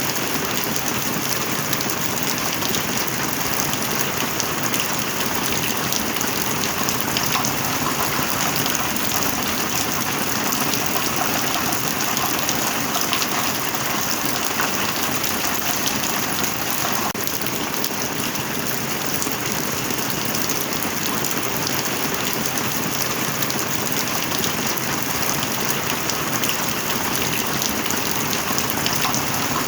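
Steady rain falling, a dense even hiss with the patter of countless individual drops.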